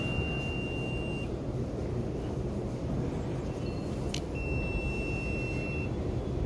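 Metro ticket-gate card reader sounding its long single-tone error beep twice, each about a second and a half, the second about four seconds after the first. Each beep follows a short click and means the card is refused because the ticket on it has expired. A steady low station rumble lies underneath.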